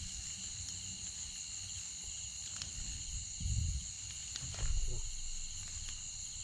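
Steady chorus of crickets and other insects, a constant high-pitched trilling, with two short low thumps about three and a half and nearly five seconds in.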